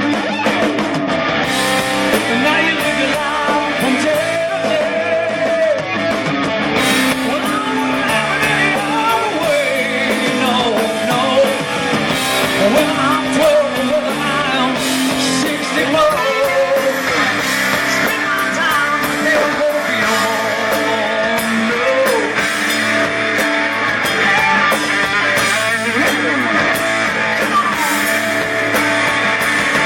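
Rock music with an electric guitar playing a lead of bending notes over the band, and no sung words.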